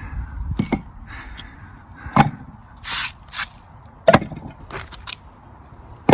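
Handling noises: a few sharp knocks spaced about two seconds apart, with a couple of short rustles between them.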